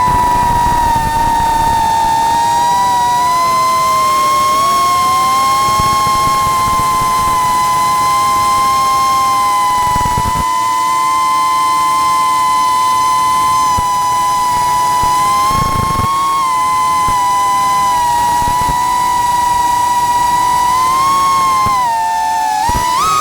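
FPV racing quadcopter's brushless motors whining at high throttle, the pitch mostly steady with small dips and a sharp rise then drop near the end.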